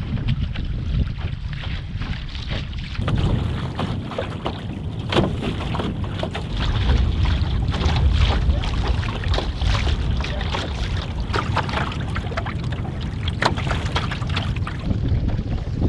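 Water slapping and splashing against the hull of a cedar-strip canoe under sail through choppy water, with a steady rumble of wind on the microphone. The slaps come thick and irregular from about three seconds in until near the end.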